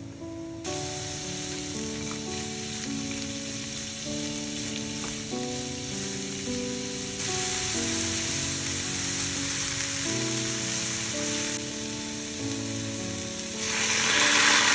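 Burdock root and carrot strips sizzling as they stir-fry in a hot frying pan; the sizzle starts about a second in and grows louder about halfway through. Near the end, sake poured into the hot pan sets off a sudden, louder sizzle.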